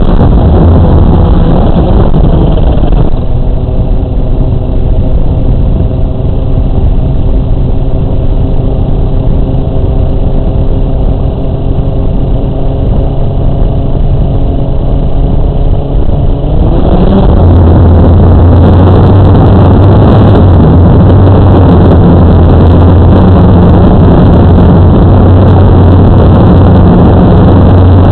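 Small drone's electric motors and propellers heard from its onboard camera. A loud whir runs for the first three seconds. Then comes a quieter steady hum with several fixed tones while it sits on the ground, and at about seventeen seconds a rising whine as it throttles up and lifts off into a loud steady whir.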